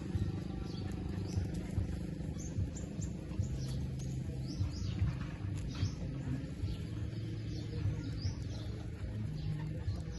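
Small birds chirping repeatedly in short high calls, over a steady low rumble.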